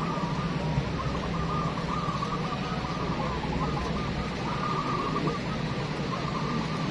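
Many zebra doves (perkutut) cooing at once in a dense, unbroken chorus, over a steady low hum.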